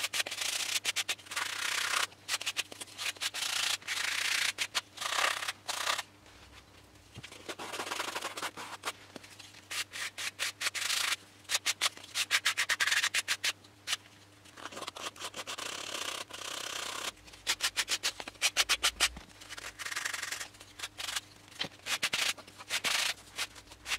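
A sandpaper block rubbed back and forth along the edge of a balsa-wood tail fin, rounding it off, in runs of quick, repeated strokes with brief pauses about six and fourteen seconds in.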